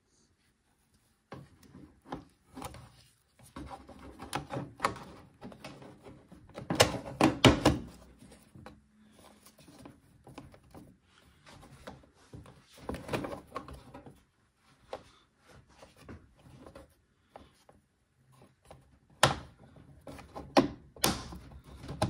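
A plastic air duct being handled and fitted into a microwave's sheet-metal housing: scattered knocks, rubs and clatter of plastic against metal, loudest about seven seconds in, with a few sharp knocks near the end.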